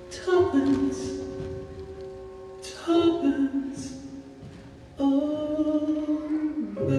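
Slow vocal ballad on a recording: long sung notes held over soft accompaniment, with a new held note coming in about three seconds in and another about five seconds in.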